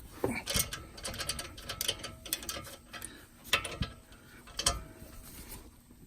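Ratchet wrench clicking in short irregular runs on a stubborn, hard-to-reach bolt during a front-axle job, with a few sharper metal knocks about half a second, three and a half and four and a half seconds in.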